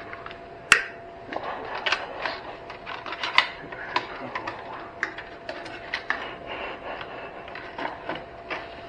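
Irregular clicks, clinks and knocks of tools and metal parts being handled while taking apart an old battery charger, with a sharp click under a second in, over a faint steady hum.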